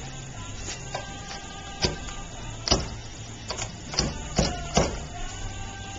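Wooden pestle pounding a betel nut quid (nut, pepper leaf and lime) in a small mortar: about seven sharp knocks, coming closer together after the first few.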